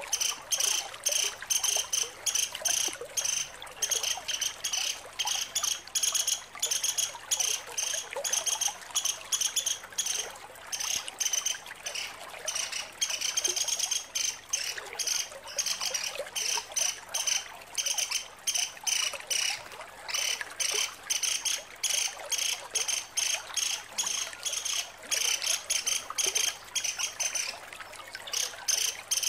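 Female pelatuk sampit, a small woodpecker, giving long runs of rapid, high-pitched chattering calls (ngecret) with only short breaks.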